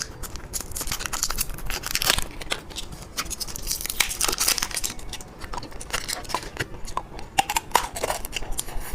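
Plastic candy packaging crinkling and tearing as it is opened by hand, in irregular crackles and rustles.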